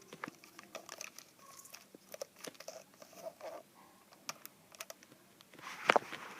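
Scattered light clicks and taps at an uneven pace, with a louder knock about six seconds in.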